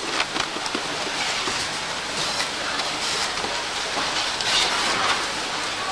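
Factory production-line noise: a steady hiss and hum of machinery, with frequent light clicks and clatter of parts being handled.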